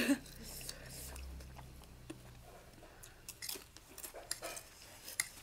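Close-up eating sounds: noodles slurped and chewed, with small, scattered wet mouth clicks in the second half.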